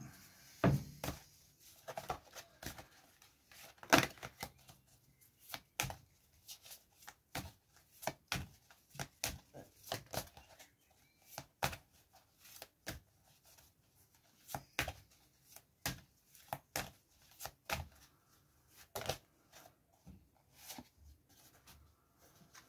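A deck of large divination cards shuffled by hand, overhand: a run of irregular card clicks and slaps, a few each second.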